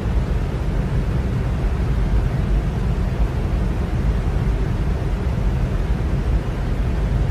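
Electric fan running steadily: a constant airy whoosh with a deep, low rumble and no change in speed.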